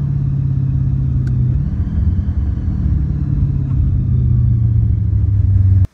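Supercharged V8 of a 730-horsepower drag car running under way, heard from inside the car. The engine note changes pitch a little under two seconds in, then slowly grows louder, and the sound cuts off abruptly near the end.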